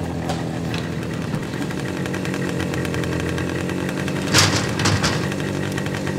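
Motorcycle engine idling steadily, with two short sharp clatters a little past the middle.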